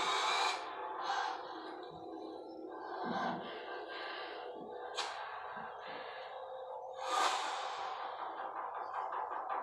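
TV drama soundtrack playing from a monitor's speakers: low background music and effects, with a sharp swish about five seconds in and a louder whoosh about seven seconds in, then a fast ticking rhythm starting near the end.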